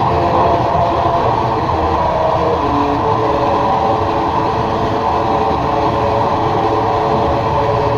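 Dense experimental drone music: layers of steady held tones over a thick, even rumble, with no beat.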